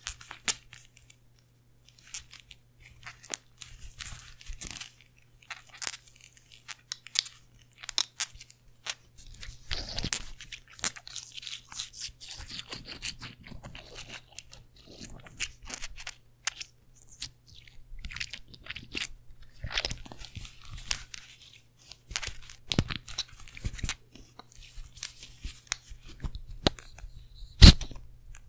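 Glass perfume bottle with a metal cap handled and tapped close to the microphone: irregular taps, clicks and scratchy rustles, with one sharp loud click near the end.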